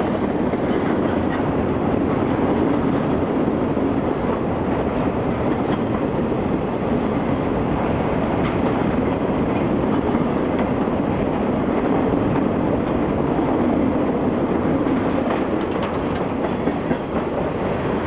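Freight cars of a long mixed freight train rolling past close by: a steady, loud rumble of steel wheels on rail with a few faint clicks.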